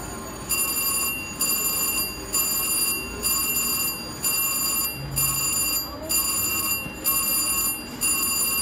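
VGT Mr. Money Bags slot machine's win bell ringing in a steady repeating pattern, a little more than once a second, as the machine counts up the credits from a winning spin.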